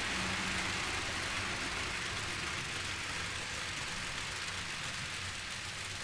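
Model train running along the layout track: a steady rushing of small wheels on rail over a low motor hum, slowly getting a little quieter.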